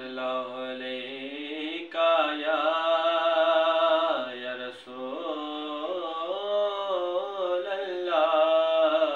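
A man chanting a Punjabi naat, a devotional poem, holding long notes that slowly bend and waver in pitch, with short breaks between phrases.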